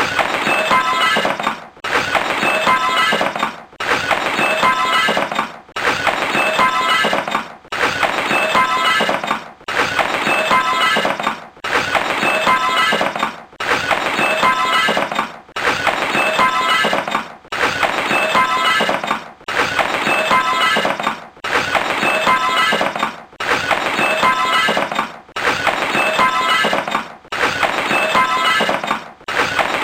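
Glass shattering with a tinkle of falling shards. The same crash repeats about every two seconds, each fading before the next begins.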